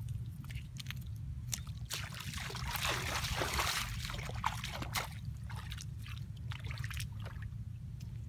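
Splashing and sloshing of feet moving through shallow water, loudest from about two to four and a half seconds in, with scattered clicks from the sticks being handled. A steady low rumble runs underneath.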